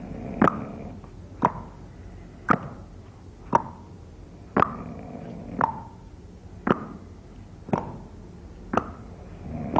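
Sharp knocks or plops repeating steadily about once a second, each with a brief ring.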